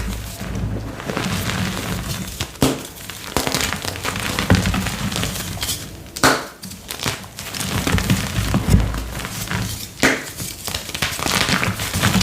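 Blocks of dyed gym chalk crumbled and crushed by hand: dry, powdery crunching and crackling, with sharper cracks about three times as pieces break.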